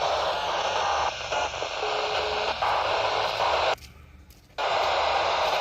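Loud radio static hiss from an Icom IC-E91 handheld receiver tuned to a UHF military satellite channel. The hiss weakens about a second in, and a short faint steady tone, the telephone dial tone carried on the channel, sounds around two seconds in. Near the end the hiss cuts out for under a second, then comes back.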